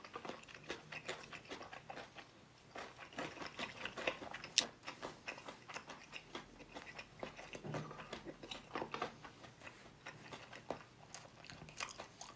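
Close-miked eating: steady chewing with frequent small crunchy clicks, and one sharp crunchy bite about four and a half seconds in.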